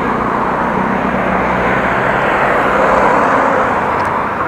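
Steady rushing noise of wind and road on an action camera's microphone while cycling, easing a little near the end.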